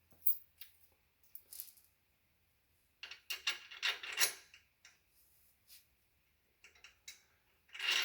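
Small metal parts clinking and rattling as bike axle hardware is handled: scattered single clicks, a busy run of rattling about three seconds in, and a sharper clink near the end.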